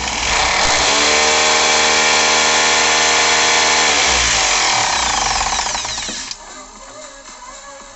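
Hitachi rotary hammer's electric motor switched on and run: it spins up quickly, runs steadily for about three seconds, then winds down in pitch once released and cuts off about six seconds in.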